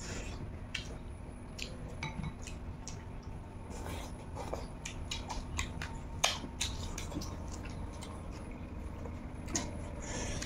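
Eating by hand from plastic plates: scattered soft clicks and taps of fingers and food against the plates while rice is mixed and picked up, with chewing.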